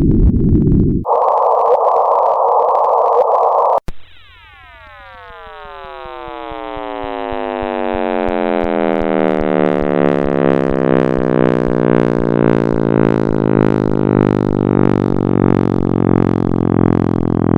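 Sonified space data, electronic and synthetic. Low band-limited hiss shifts about a second in to a higher band of hiss with a steady tone beneath it. After a click near four seconds, a dense cascade of many falling tones fades in over several seconds and then runs on steadily.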